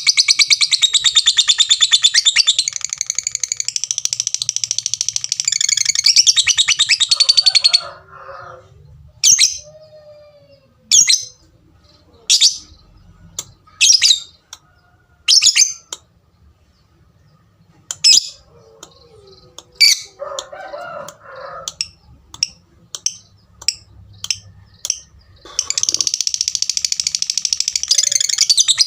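Lovebird giving a long, rapid, high-pitched chattering trill (ngekek), which breaks off into single sharp 'tik' calls about a second and a half apart. The calls quicken, and the long chatter starts again near the end.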